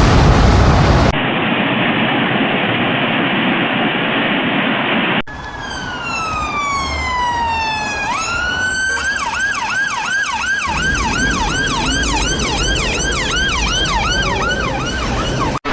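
Steady rushing noise of floodwater and heavy rain for the first five seconds, broken by an abrupt cut about a second in. Then an emergency-vehicle siren sounds over the continuing water noise: a slow falling wail that swings back up, then a fast yelp of about three rises and falls a second.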